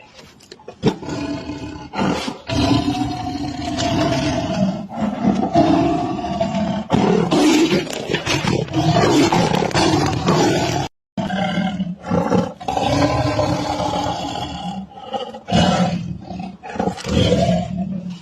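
Big cats roaring and growling, one call after another, with a moment of dead silence about eleven seconds in.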